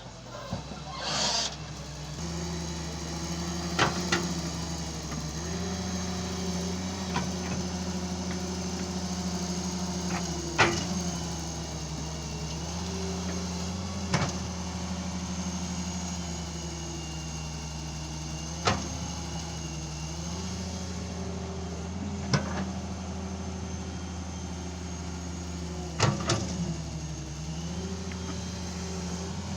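Excavator's diesel engine running steadily, its note dipping and recovering every few seconds, with a sharp knock or clank every few seconds and a short hiss about a second in.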